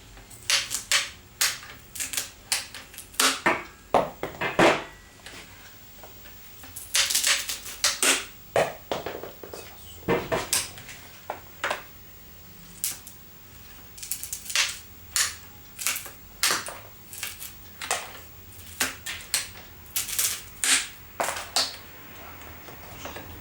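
Ratchet lopper cutting through branches in stages: repeated sharp clicks and crunches of the ratcheting jaws and blade biting into wood, coming in irregular bursts.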